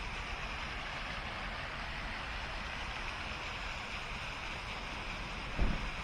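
Steady rushing noise, with a single dull low thump shortly before the end.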